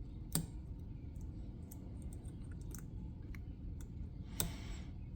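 Faint, scattered clicks of a lock pick and tension wrench working the pin stack of a Master Lock M530 four-pin padlock. There is a sharper click shortly after the start and a brief rustle near the end.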